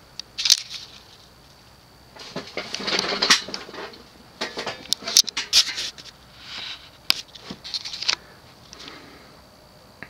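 Sharp clicks and short bouts of light rattling as a ceiling fan's pull chains are worked to switch the Casablanca Wailea off and reverse its rotation.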